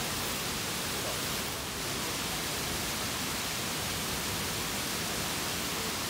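Steady rushing noise of a waterfall, even and unbroken throughout.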